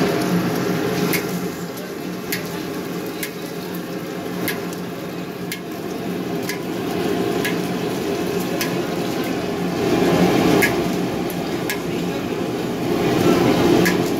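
Eggs frying in oil in a hawker's large wok, the start of a mamak mee goreng, sizzling over the steady rush of the wok burner; it swells twice near the end. Sharp clicks recur about once a second.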